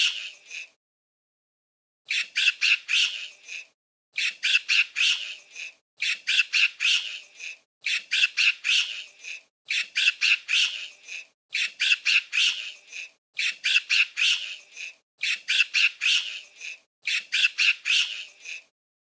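Monkey chattering: a burst of rapid, sharp, high-pitched calls, repeated the same way about every two seconds with silence between.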